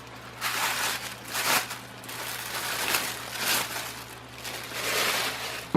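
Rustling and crinkling of packaging in several short bursts as boxed ceiling-fan parts in their sealed bags are handled.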